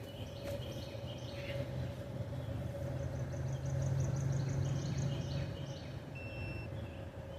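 Birds chirping in quick repeated high notes, over a low steady hum of distant vehicle traffic that swells in the middle.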